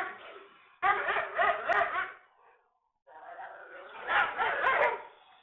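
Human voices in two short stretches, laughing or exclaiming, with dead silence between them.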